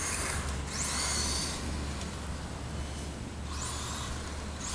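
Brushless electric motor of a 1/16-scale Traxxas Revo VXL RC truck whining in three short bursts as the throttle is blipped.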